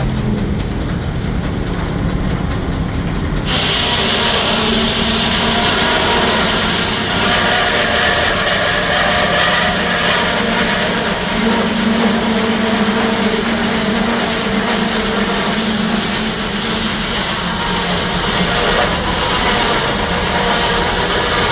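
Steam-engine-driven Frick sawmill running. About three and a half seconds in, a loud high hissing whine sets in and holds, typical of the circular saw blade cutting into a log, while the low hum of the drive shifts in pitch under the load.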